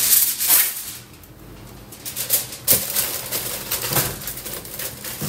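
Aluminium foil crinkling and crackling as it is pressed and crimped around the rim of a metal mixing bowl. It comes in bursts of crackles, with a short lull about a second in.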